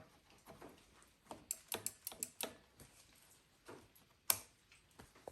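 Scattered light clicks and taps from hand work on motorcycle parts: a quick run of them about one and a half seconds in, and a single sharper knock a little past four seconds.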